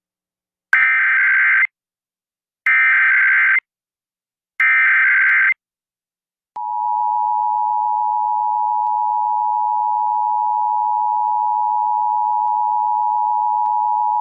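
Emergency Alert System SAME header: three short bursts of digital data tones about two seconds apart. About a second after the third, the EAS two-tone attention signal (853 and 960 Hz together) starts and holds steady.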